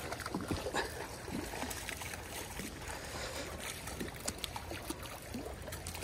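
A hooked trout splashing and thrashing at the surface of a creek while it is being played, a string of small, irregular splashes over the steady wash of running water.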